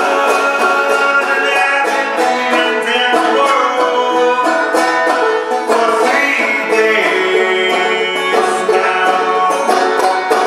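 Banjo played clawhammer style in an instrumental passage: a steady, rolling run of plucked notes with sharp attacks.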